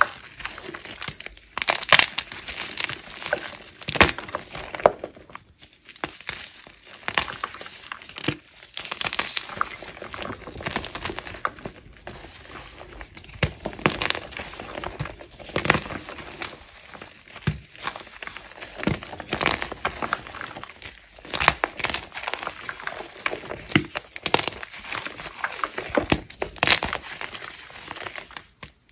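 Blocks of reformed gym chalk crushed and crumbled by hand into loose chalk powder: irregular dry crunches and crackles, with softer powdery rustling between them.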